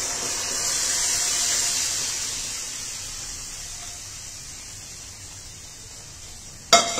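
Hot kadai of ghee-fried masala sizzling and hissing as boiled black chickpeas and their cooking water are poured in. The sizzle is strongest in the first couple of seconds and fades away. Near the end comes one sharp metallic clank.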